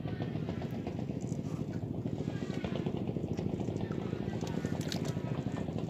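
A small engine running steadily with a fast, even throb.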